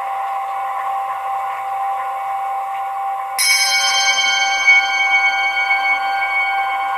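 Ambient music with a steady sustained drone. About halfway through, a bell is struck once and rings on over the drone, its high tones slowly fading.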